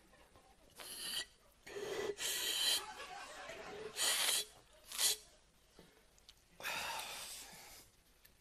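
A man making loud breathy sounds with his mouth, in about five bursts of half a second to a second and a half each.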